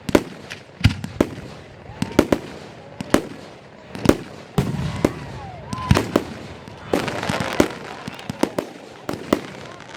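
Fireworks going off: a rapid, uneven series of sharp bangs, about one or two a second.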